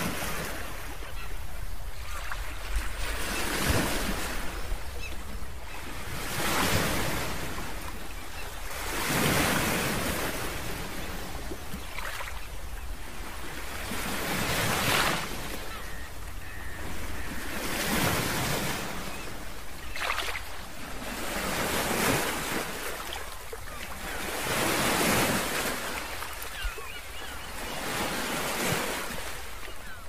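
Ocean waves breaking and washing in, the surf swelling and ebbing about every three seconds.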